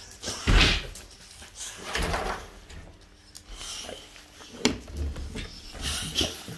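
Irregular thumps, knocks and rattles at a wooden kennel with a wire-mesh gate as boxer dogs jump against it. The loudest thump comes about half a second in, and a sharp click comes about two-thirds of the way through.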